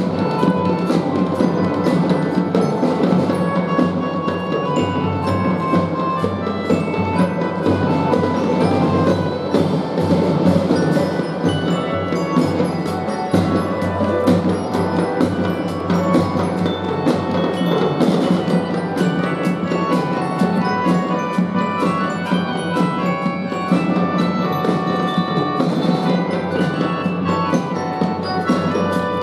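Children's drum and fife band playing a tune: a bright glockenspiel-like mallet-percussion melody over steady drum beats.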